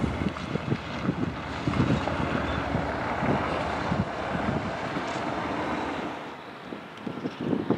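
Wind buffeting the microphone in irregular low gusts, over the steady distant rumble of an approaching freight train's diesel locomotives. It drops quieter about six seconds in.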